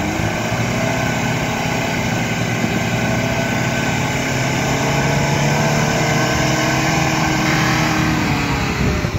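Lada Niva's engine revving up and held at high revs as it works in the mud, the revs dropping back shortly before the end.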